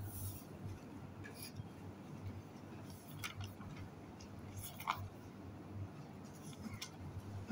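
Low background noise with a steady hum, broken by a few faint, brief clicks and rustles.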